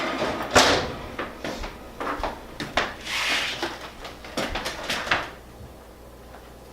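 Kitchen cupboards and drawers being handled: a string of knocks and clicks, with a longer sliding sound about three seconds in, then it goes quieter near the end.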